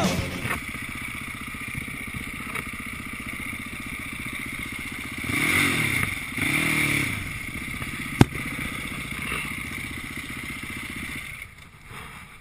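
Can-Am DS450 quad's single-cylinder four-stroke engine running at low revs while riding slowly. It gets two short throttle blips in quick succession about halfway through, followed by a single sharp click. Near the end the sound fades out.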